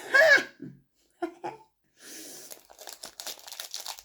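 A short, loud vocal noise at the very start, then a snack wrapper being torn open and crinkled, starting about two seconds in.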